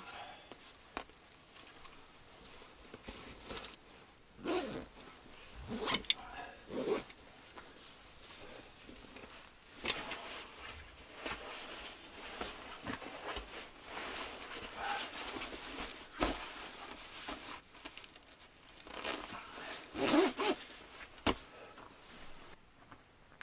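Rustling of a padded jacket and a zipper being pulled, among scattered knocks and handling noises.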